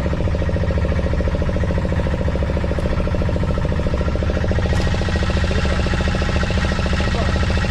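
Fishing boat's engine running steadily, with a rapid, even pulsing.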